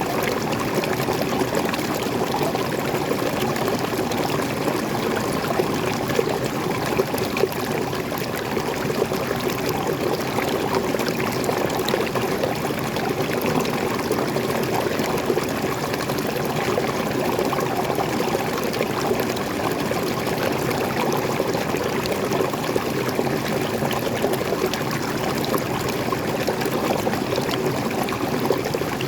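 Small forest waterfall and stream: water pouring and splashing over rocks in a steady rush.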